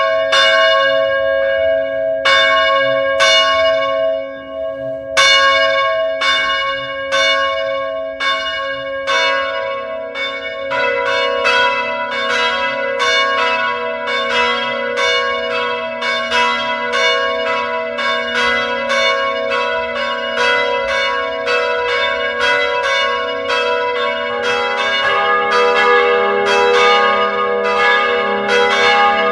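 Church bells of several pitches ringing, each strike ringing on into the next. The strikes come about once a second at first, with a short pause about four seconds in, then quicken to roughly two a second from about ten seconds in, with lower bells joining near the end.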